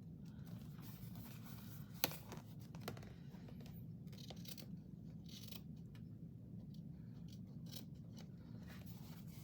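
Faint scissors snipping excess fabric hinge strip and paper, with scattered small clicks and handling sounds over a steady low hum; one sharper click about two seconds in.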